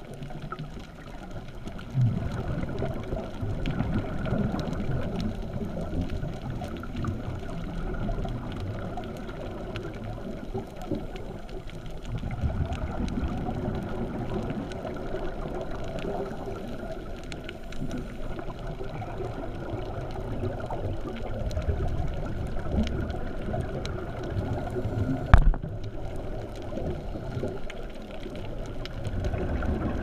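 Muffled underwater noise heard through a GoPro's waterproof housing: the low gurgling rumble of scuba divers' exhaled regulator bubbles, swelling in surges about every ten seconds. One sharp knock stands out about five seconds before the end.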